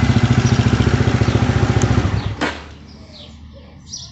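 Horizon 250 motorcycle engine idling with an even pulsing beat, extremely quiet with its cam chain tensioner serviced. It stops suddenly a little over two seconds in. Faint bird chirps follow.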